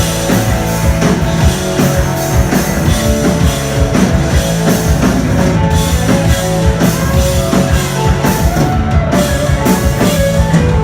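Live rock band playing an instrumental passage with no singing: a drum kit keeping a steady beat under guitars.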